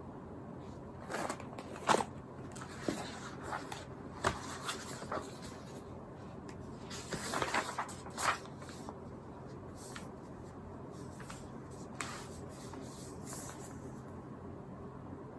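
Things being handled: a scattering of light knocks and clicks with some rustling, the sharpest about two seconds in and about eight seconds in, over a steady low hum.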